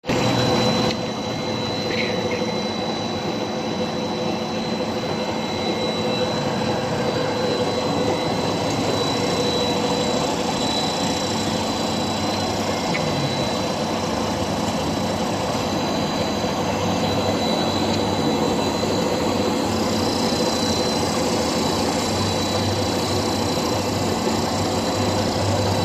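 Dog food extrusion line running: a steady mechanical drone of the extruder's motors and drive, with a hum and a thin high whine held steady over it.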